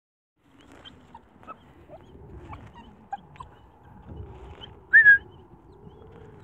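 Puppy whining and howling in a wavering, sliding voice, with one sharp high cry about five seconds in, the loudest sound.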